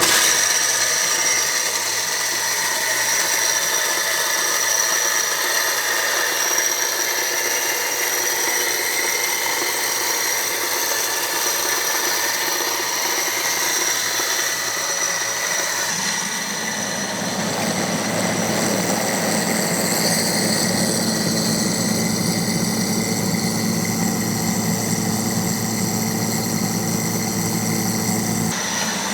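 Homemade corn grinder running: a 1.5 hp Leeson electric motor drives a table-saw arbor with a fly cutter on a dado blade through a 1:1 belt and pulleys, grinding a load of field corn. It starts suddenly and runs steadily with a high whine. About halfway through, a deeper, rougher grinding rumble joins in.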